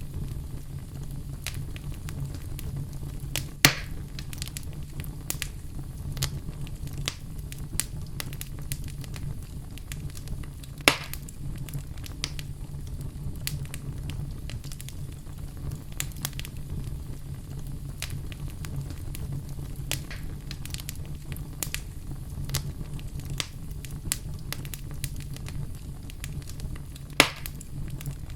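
Fire burning in a fireplace: a steady low rumble under constant small crackles, with three sharp, louder pops spread through.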